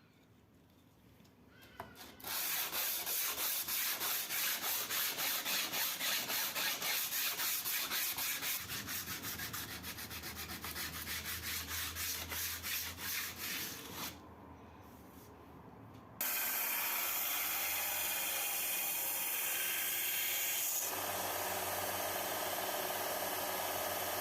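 Sanding in quick back-and-forth strokes, about two a second. After a short pause it gives way abruptly to a steady, continuous sanding noise with a low hum.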